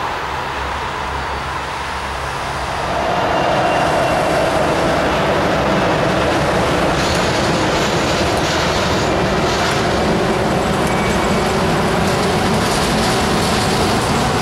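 Boeing 787-9 airliner's turbofan engines running as it taxis onto the runway, a steady jet roar that swells louder about three seconds in and then holds.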